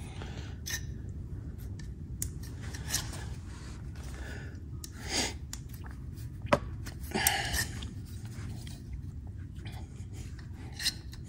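Hand tools working a brake line in a flaring tool: scattered small metal clicks and scrapes, the sharpest about six and a half and seven seconds in, over a steady low hum.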